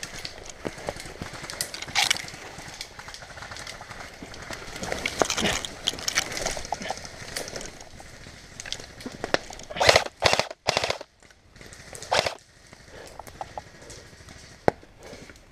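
Airsoft guns firing: scattered sharp clicks and short runs of shots, with the loudest cluster of shots about ten seconds in and another shot shortly after.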